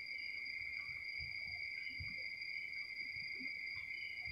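A steady high-pitched whine in two pitches, unbroken and even, over faint soft low taps.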